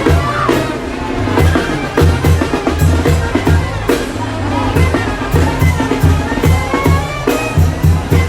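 Loud music with a steady beat of drums and a strong, moving bass line.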